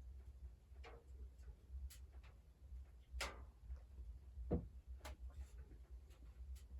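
Faint, irregular clicks and ticks, a louder click about three seconds in and another about a second and a half later, over a steady low rumble.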